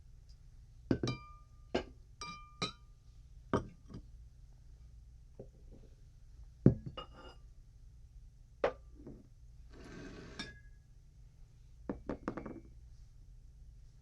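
Glass objects clinking and knocking together in a dozen or so separate strikes at irregular intervals, several leaving a short bright ring, the loudest about halfway through. A brief scrape comes about ten seconds in.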